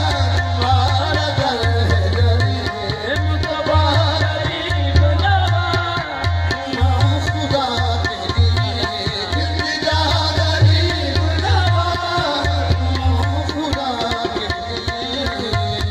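Qawwali music: harmonium melody over a steady tabla rhythm.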